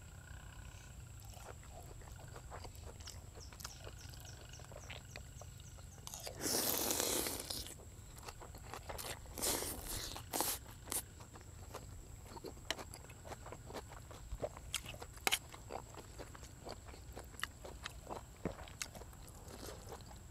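Close-up eating of egg noodles and pork: one long loud slurp about six seconds in, a few shorter slurps around ten seconds, and chewing with small clicks of the spoon and fork against the metal tray.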